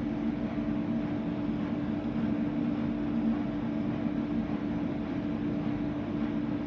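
CNC lathe running during the cutting of a module-1 internal gear: a steady machine hum with a few fixed tones over an even hiss, without breaks.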